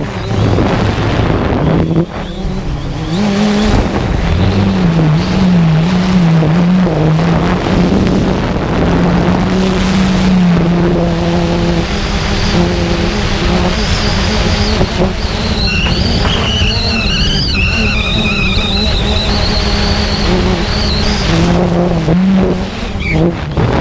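Motors of a small remote-controlled aircraft running hard, their pitch wavering up and down as the throttle changes, with a higher whine that rises and falls in the second half.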